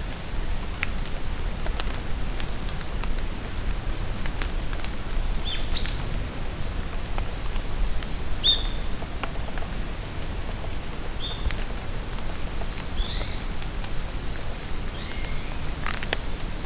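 Steady rain falling in a forest with scattered drips, while birds give short high chirps and trilling calls on and off throughout.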